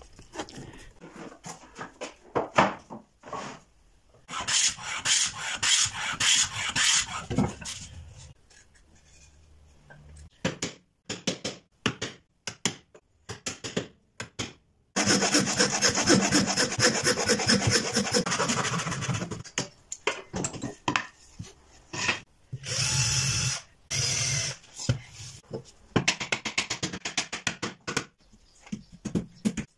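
Hand tools working wood in a series of short segments. There are stretches of fast, rasping strokes cutting or shaving wood. Sharp hammer knocks drive a chisel, and near the end a hammer taps a small wooden frame together.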